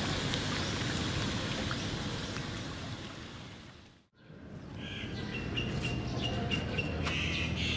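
Pond water splashing and sloshing as a crowd of large fish churns at the surface; it fades out about four seconds in. Then a quieter outdoor background with a thin, high chirp repeated in short pieces.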